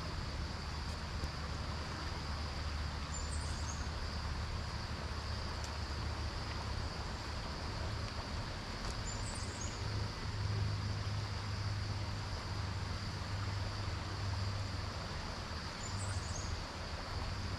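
Outdoor ambience beside a canal: a steady high insect drone over a low steady rumble, with a short bird chirp three times, about six to seven seconds apart.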